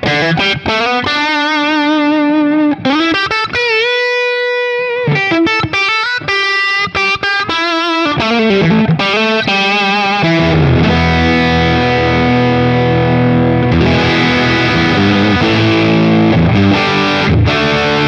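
Electric guitar on a Stratocaster's bridge pickup (two coils in series) through a Boss Katana-100 amp's clean channel with the gain turned up: overdriven single-note lines with bends and a held note with vibrato, then sustained chords from about ten seconds in. It is a saturated but open, little-compressed drive, which the player puts at the edge of a blues solo tone.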